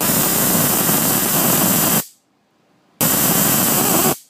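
High-voltage arc from a homemade Arduino-driven TV flyback transformer driver, a loud hissing buzz. It comes in two bursts that start and stop suddenly: one of about two seconds, then after a second's gap, one of about a second.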